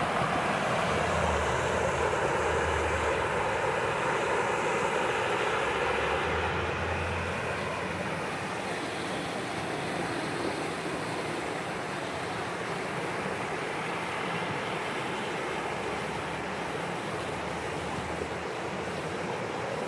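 Mountain stream rushing over rocks in white-water rapids: a steady rush of water, a little louder for the first several seconds, with some low wind rumble on the microphone now and then.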